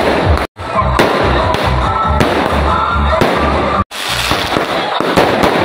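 Background music with a steady beat, mixed with aerial fireworks bangs and crackling. The sound drops out for an instant twice, about half a second in and just before four seconds.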